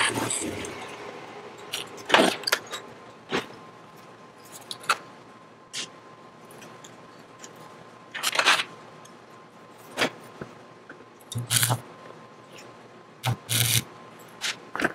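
Scattered short metallic clinks, clatters and knocks of steel parts and tools being handled and set down on a steel workbench and bench vise, about ten in all, the loudest about two seconds in and in a short cluster past the eight-second mark. A faint steady tone hums underneath.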